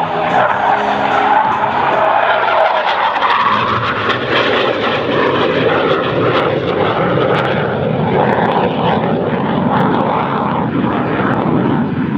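Jet noise of a BAE Hawk 127 trainer's Rolls-Royce Adour turbofan during a display pass: a loud, steady rush, with a tone that sweeps down in pitch a few seconds in.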